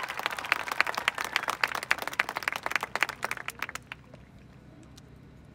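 Audience applauding at the end of a marching band show; the clapping thins out and dies away about four seconds in.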